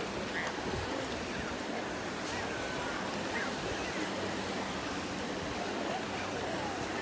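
Crowded beach ambience: a steady wash of noise with faint distant voices and calls of many beachgoers mixed in.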